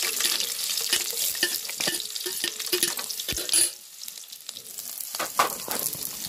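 Chopped onion and green chilli dropped into hot oil in a kadhai, sizzling loudly, with a steel spoon clinking against a steel plate and the pan. About four seconds in, the sizzle settles to a softer, steady frying, with another knock of utensil on the pan later.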